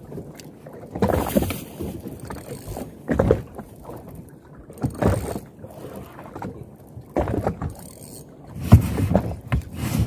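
Water slapping and sloshing against the hull of a small drifting boat, in irregular surges every second or two, with wind buffeting the microphone.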